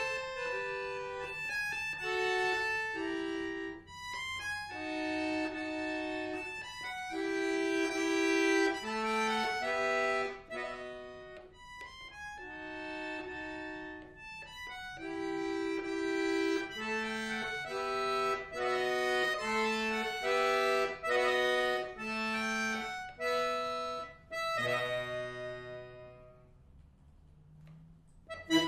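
Chromatic button accordion playing a classical piece: a lively passage of short chords and melody notes, then about 25 seconds in a low held chord that dies away to very quiet.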